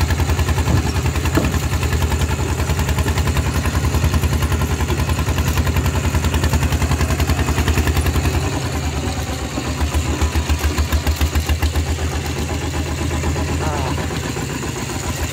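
Walking tractor's single-cylinder diesel engine running loud through a straight, open exhaust pipe, with a fast, even thudding beat. The beat dips briefly about eight seconds in, then picks up again.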